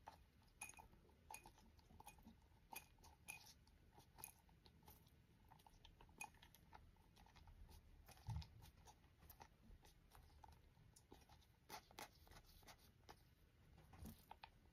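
Rock pigeon pecking seeds out of a glass jar: faint, quick, irregular clicks and crunches as its beak picks among the grain, with a soft low bump about eight seconds in.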